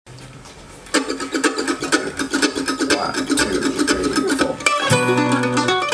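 Bluegrass band starting a tune: from about a second in, a mandolin picks fast, scratchy-sounding repeated strokes, and near the end the bass and guitar come in with clear plucked notes.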